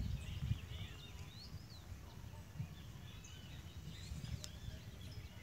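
Small birds chirping and twittering in many short rising and falling calls, over a low rumble of wind on the microphone.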